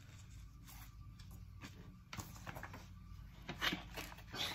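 Faint rustling and crinkling of plastic snack wrappers being handled, with a few soft taps, over a low steady hum; the crinkling grows a little louder near the end.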